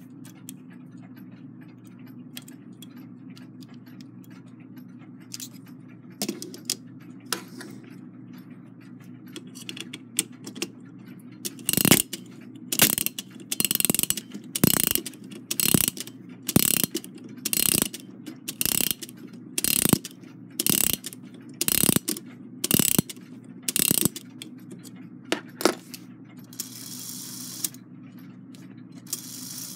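A Takeda octagon clock movement's mainspring being wound with a brass key: the ratchet click snaps about once a second as the key is turned in steps, after a few scattered clicks. A soft whir follows near the end.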